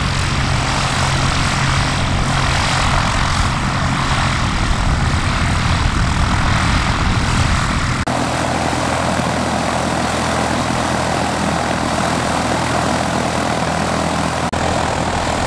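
Light propeller aircraft's piston engine running steadily and loudly, with a steady low engine hum; the engine note changes abruptly about halfway through to a different, steadier drone.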